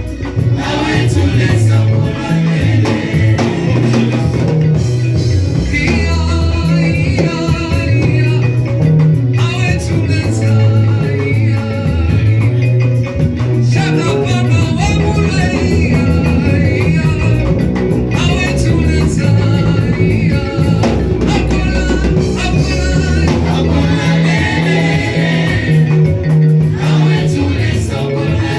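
Live church worship band playing a hymn, with singing voices over a prominent bass line.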